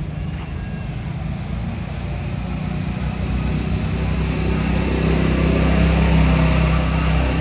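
A motor vehicle's engine rumbling as it passes, growing louder through the middle and easing a little near the end.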